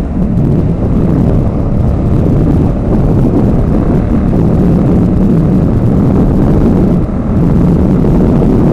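Heavy wind buffeting on the microphone of a naked motorcycle cruising at motorway speed, about 72 mph with the throttle locked, over the steady engine and road noise. It is a loud, continuous low rumble.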